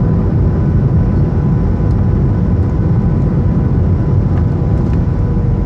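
Steady low rumble of a Boeing 737-800's CFM56 jet engines and rushing air, heard inside the cabin during the landing, with a faint steady whine over it.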